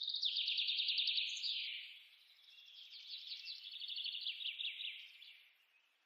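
A small songbird singing two fast, trilling phrases of rapidly repeated high notes, the second starting about two and a half seconds in.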